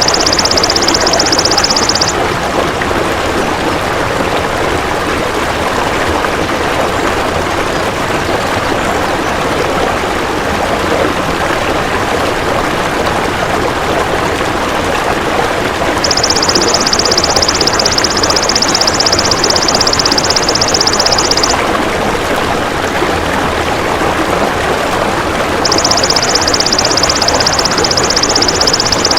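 Belalang emas (golden grasshopper) giving a high, rapid buzzing trill in three bouts: briefly at the start, for about five seconds from around 16 seconds in, and again near the end. Under it runs a steady rushing noise.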